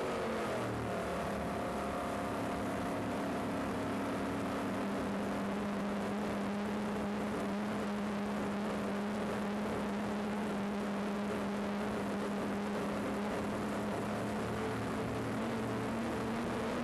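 Unlimited Light racing hydroplane's engine heard from inside the cockpit, running at a steady pitch over a constant rushing noise.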